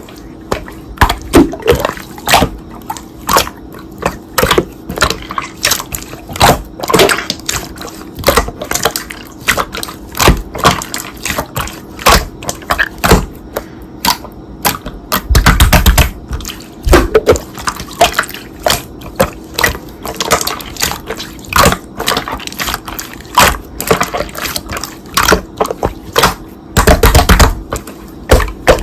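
Slime being squished and pressed by hand: a steady run of irregular wet clicks and small pops of trapped air, with louder squelching bursts about halfway through and near the end.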